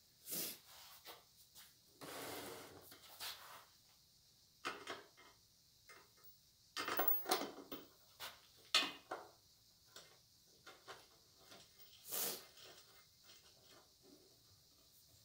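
A plastic knob and the metal fittings under a bench band saw's table being handled and screwed in by hand: scattered clicks, knocks and light scraping, with a longer rubbing sound about two seconds in and a few sharper knocks later on.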